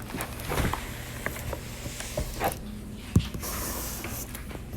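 Plastic wrapping crinkling and being pulled off a boxed cutting machine, with scattered clicks of handling and one sharp knock about three seconds in.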